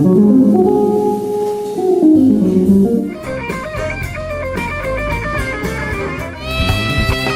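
Electric guitar playing a blues lick with string bends, over a backing track whose drums come in about three seconds in. Near the end a long note is held and bent upward.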